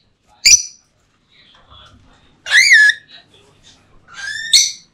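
Pet parrots calling loudly: a short harsh squawk about half a second in, then two longer shrill calls, the last rising and breaking into a harsh screech near the end.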